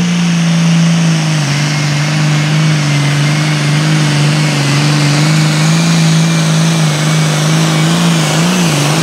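Limited Pro Stock pulling tractor's turbocharged diesel engine running flat out under load as it drags the weight-transfer sled. Its pitch holds steady, dips slightly about a second and a half in, and wavers near the end.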